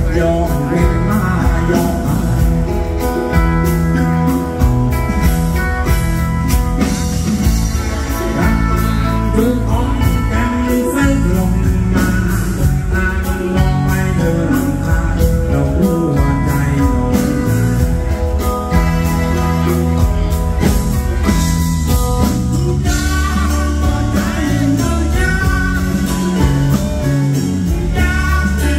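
Live rock band playing loud amplified music, with electric guitar, bass and drums behind a lead vocal.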